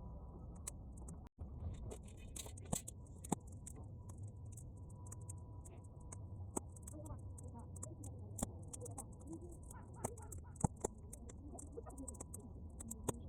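Bonfire of half-dried weeds crackling, with sharp pops scattered irregularly through it over a low rumble of wind on the microphone. The sound cuts out for an instant about a second in.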